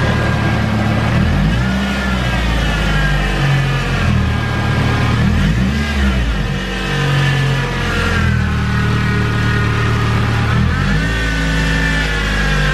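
Nissan 240sx's KA24DE four-cylinder engine revved several times, each rev rising and falling, with a high whine over the engine that climbs and drops with the RPM. The whine is unexplained and worrying to the owner.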